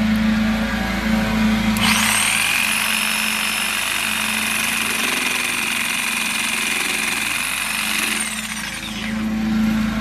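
Jigsaw cutting through a Trex composite deck board. A steady high motor whine comes in about two seconds in and winds down near the end.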